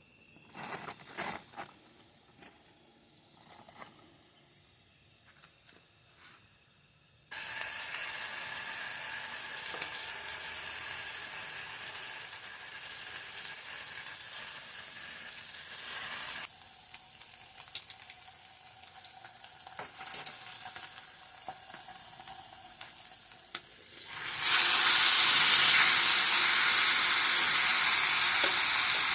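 Food frying and sizzling in a hot pan: after a few quiet seconds with some light knocks, the sizzle starts suddenly, eases a little midway, then jumps much louder near the end.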